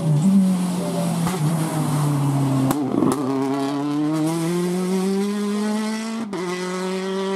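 Citroën rally car's engine passing close, its pitch dropping as it slows for a bend. A short sharp crack comes about three seconds in. The engine then rises steadily as it accelerates away, with a brief break about six seconds in as it changes up a gear.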